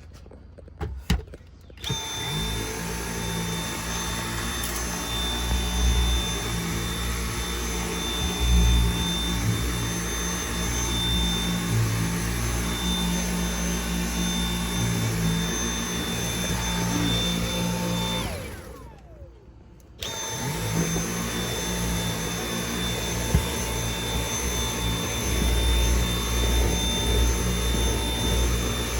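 Dyson V8 cordless stick vacuum starting after a couple of clicks, running with a steady high whine. About two-thirds of the way through it is switched off and winds down in falling pitch, then starts again.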